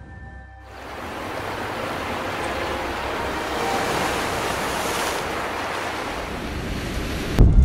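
Waves washing onto a shore with wind, a steady rushing noise that starts about half a second in and cuts off suddenly just before the end.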